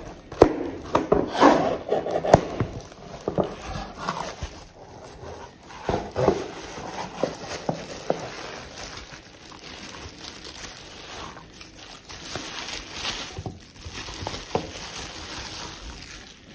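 Cardboard shipping box being opened and handled, with irregular taps, scrapes and flap rustles, then bubble wrap crinkling as a Blu-ray case is pulled out of it.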